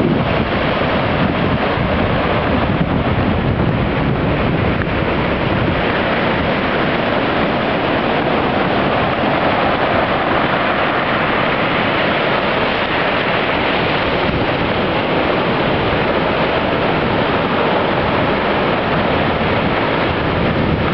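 Mediterranean surf: waves breaking and washing up the shore in a steady, unbroken rush.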